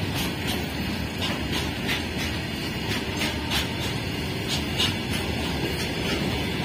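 Loaded BOXN open freight wagons rolling past close by: a steady low rumble of steel wheels on rail, broken by an uneven run of sharp clicks from the wheels, a few a second.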